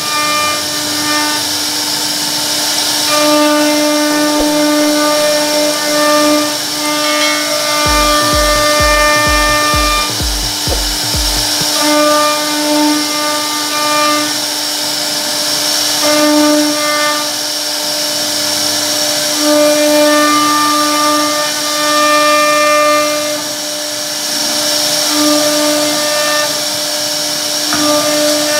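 CNC router spindle cutting a wooden door panel: a steady high-pitched whine that holds one pitch, with its overtones swelling and fading as the bit takes heavier and lighter cuts.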